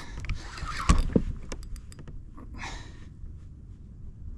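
Handling sounds aboard a fishing kayak: two sharp knocks about a second in, a short hiss just before three seconds, over a steady low rumble.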